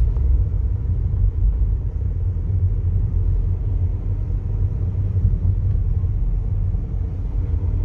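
Steady low rumble of a car driving along a road, heard from inside the cabin: road and engine noise with no distinct events.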